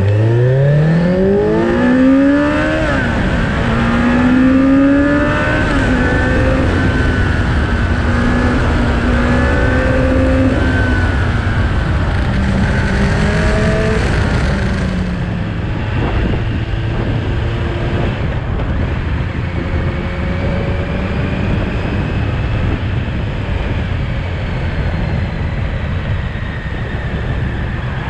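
Motorcycle engine pulling away hard. Its pitch rises steeply, drops at a gear change and rises again in the first few seconds, then holds steady at speed. After about fifteen seconds the engine note falls back under a steady rush of noise.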